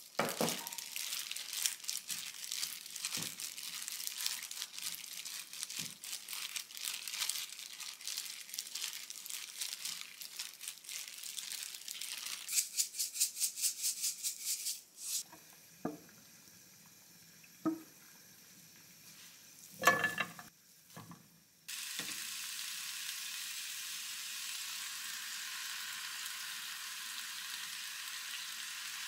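Plastic kitchen glove crinkling and squishing as spinach is mixed by hand, then a sesame grinder clicking in an even rattle of about five clicks a second. After a few knocks, a pan on the stove gives a steady sizzle.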